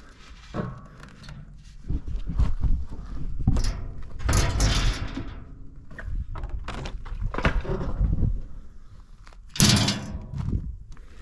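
Irregular knocks and thuds, with two louder noisy swishes, one about four seconds in and one near the end.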